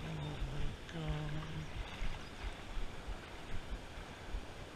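Steady rush of shallow river water with irregular low rumbles of wind on the microphone. Two short wordless vocal sounds come within the first two seconds.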